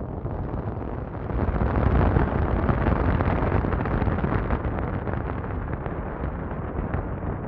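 Wind buffeting the microphone over the low rumble of a bass boat running across the lake under outboard power. It swells about one and a half seconds in and eases off toward the end.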